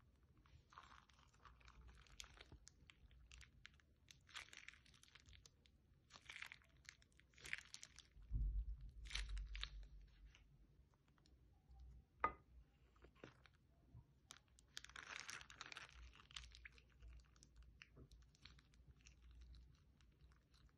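Slime being squeezed by hand out of a plastic bag, with the bag crinkling and crumpling: soft, irregular crackles and squishes, and one sharp click about twelve seconds in.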